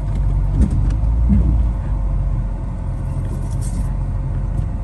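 Off-road vehicle driving over rough ground: a steady low rumble of engine and tyres, with a couple of brief knocks about half a second in.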